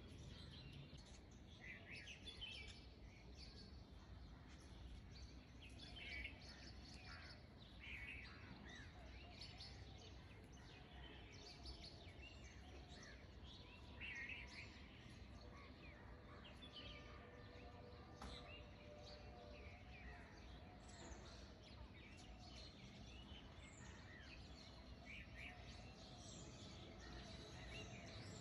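Near silence: a faint background hum with scattered distant bird chirps every few seconds.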